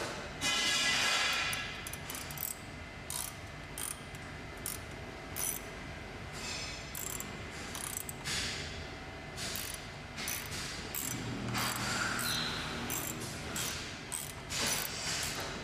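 Ratchet driver clicking as a bolt is tightened, fixing the trolley's aluminium handle frame to its base board: single clicks between several longer rasping runs of rapid clicks.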